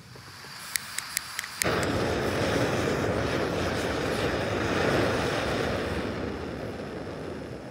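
Portable canister gas camping stove lighting: gas hissing as the valve opens, a few sharp igniter clicks, then the burners catching about one and a half seconds in and burning with a steady rushing sound that slowly eases toward the end.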